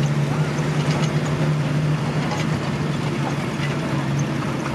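Straight-six engine of a WWII GMC CCKW 2½-ton 6×6 army truck running steadily as the truck drives past.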